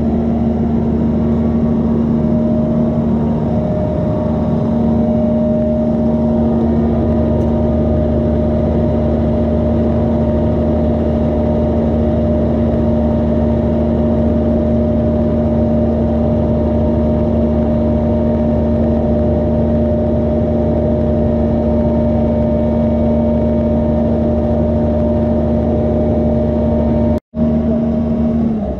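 Doosan DX140 excavator running steadily, its engine holding an even pitch with a constant hum. The sound cuts out for a split second near the end.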